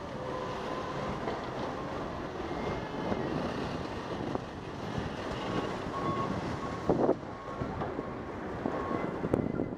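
Wind rushing over a bike-mounted camera's microphone while riding, mixed with tyre noise on wet pavement and city traffic. A short loud knock about seven seconds in.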